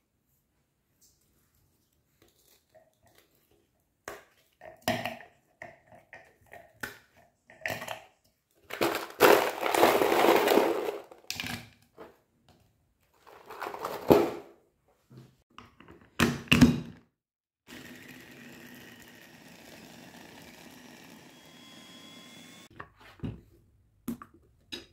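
Frozen banana pieces and frozen strawberries tipped into a plastic food-chopper bowl, clattering and knocking against the plastic in a run of small hits, with the loudest pour of fruit about nine seconds in and more sharp tumbles later. After that comes a faint steady hum for about five seconds, then a couple of clicks near the end.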